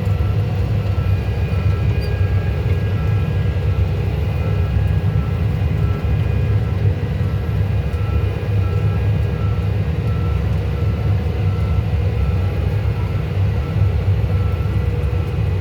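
John Deere tractor's diesel engine running steadily, with the PTO driving a Triton rotary grass mower. A faint high beep repeats evenly alongside.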